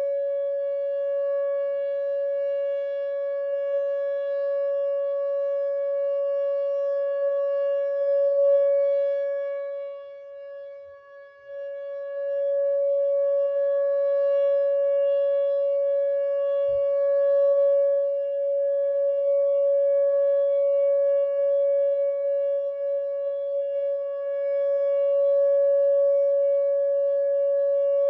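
Whelen WPS 2909 electronic outdoor warning siren sounding a steady alert tone at one held pitch. Its loudness dips briefly about ten seconds in and then returns.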